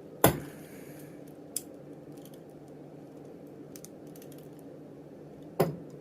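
Bobby pin being worked inside a double-locked handcuff's keyhole: sharp metallic clicks. Two loud ones come about a quarter second in and near the end, with a smaller click and faint light ticks between.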